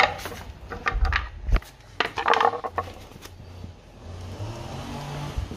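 Hard plastic clicking and knocking as the parts of an Intex Seahawk 2 dinghy's plastic motor-mount bracket are fitted onto its aluminium rod. It comes as a run of irregular sharp knocks in the first three seconds, thickest in a short cluster around the middle, then eases off.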